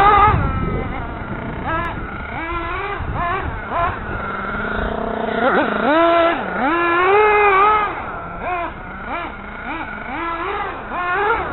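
Radio-controlled car's motor whining, its pitch rising and falling over and over as the throttle is worked.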